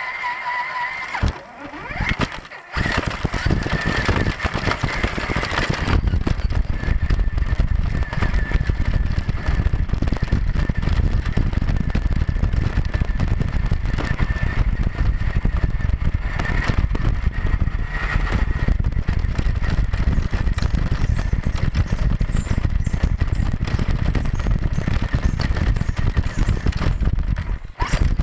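1/10-scale Axial Deadbolt RC crawler driving, its electric motor and gears giving a steady thin whine. From about six seconds in a heavy low rumble is added as it rolls over rough dirt and gravel.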